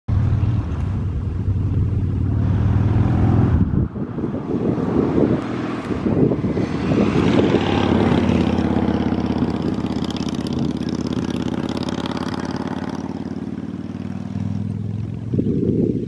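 A motor vehicle's engine passing by. Its pitched hum builds about four seconds in, then slowly drops in pitch and fades out near the end.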